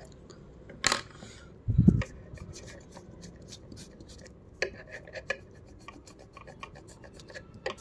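Close handling noise at a drawing desk: a sharp click about a second in, then a heavy low thump just before two seconds as a hand comes up against the recording phone. Scattered light clicks and rubbing follow.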